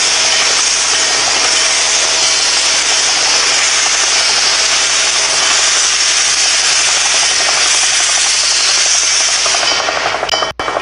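Norfolk & Western 611, a J-class steam locomotive, hissing loudly and steadily as it vents steam while building steam pressure. Near the end the steam whistle starts to sound.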